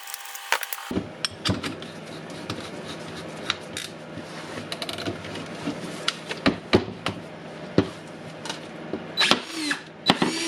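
Clicks and knocks of metal tools working on a DeWalt cordless drill's chuck. Near the end the drill's motor spins up in two short bursts.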